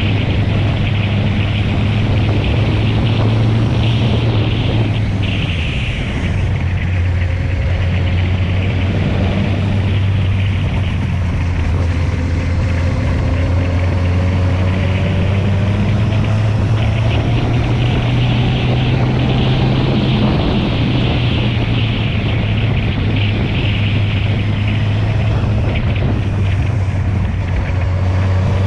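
Kawasaki Z750 motorcycle engine running steadily under way, with wind rushing over the microphone. The engine note dips and shifts briefly about six seconds in.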